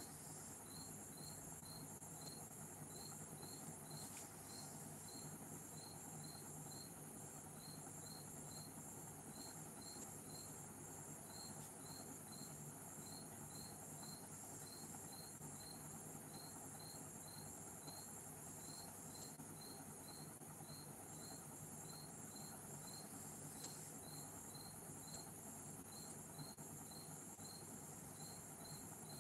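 Faint chirping insect: short high-pitched chirps repeating evenly about three times a second, over a steady high hiss and a faint low hum.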